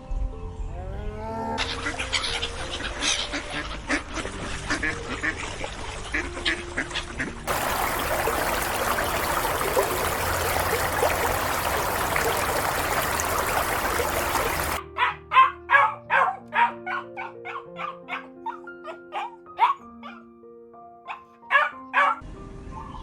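Soft piano music with animal calls: a steady hissing noise through the middle, then a run of short sharp animal calls, several a second, near the end.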